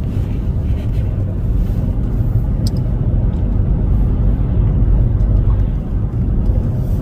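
Steady low road rumble of a car driving, heard from inside the cabin, with a brief faint click a little under three seconds in.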